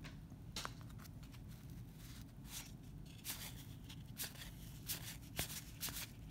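1991 Donruss baseball cards being thumbed through one at a time, each card slid off the stack: faint, scattered flicks and clicks of cardboard, about eight over the few seconds.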